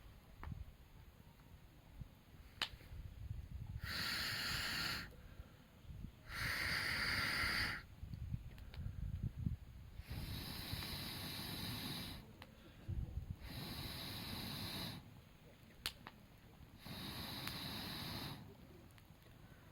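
Air blown into a campfire in five hissing blasts, each one to two seconds long with pauses between them, while the fire crackles with an occasional sharp pop.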